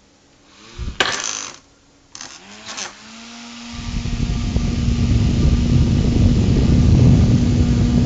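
Small USB fan: two brief clunks of handling, then the motor starts with a steady hum. From about four seconds in, a loud, even rush of air from the blades holds to the end.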